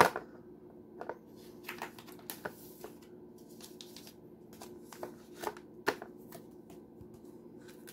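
Hands handling the packaging in a pistol box, plastic cover and paper leaflet: a sharp knock at the start, then scattered clicks, taps and rustles.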